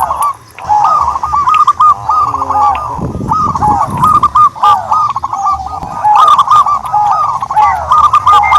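Turtledoves calling: a dense run of quick, repeated arched notes, overlapping as from several birds, with a short stretch of lower rough noise about three seconds in.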